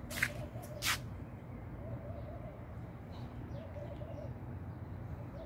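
A dove cooing repeatedly, a short wavy call about every second and a half, over a steady low background hum. Two sharp clicks come in the first second.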